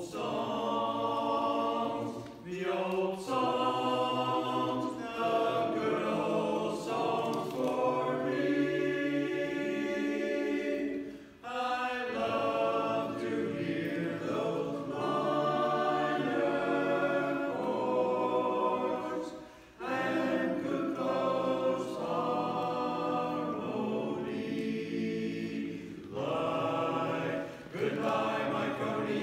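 Barbershop chorus singing a cappella in close harmony: sustained chords in phrases, with two short breaks between phrases, near the middle and about two-thirds through.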